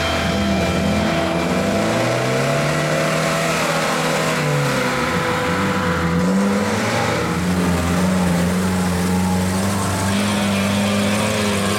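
Off-road vehicle engine working under load, its revs climbing and dropping several times, then holding fairly steady in the second half.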